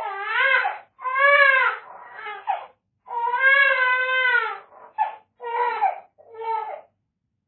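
Baby crying: a run of wailing cries, a long drawn-out cry in the middle, then shorter, choppier cries that stop shortly before the end.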